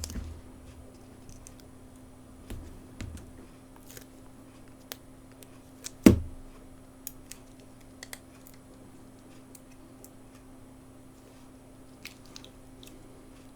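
Small scattered clicks and taps from handling smartphone parts and tools during reassembly, with one louder knock about six seconds in, over a faint steady hum.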